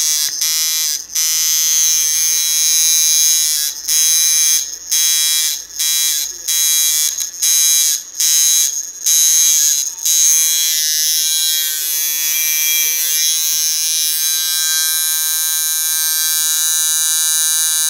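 Coil tattoo machine buzzing at a steady pitch. It cuts out and restarts about once a second for the first ten seconds, then runs continuously.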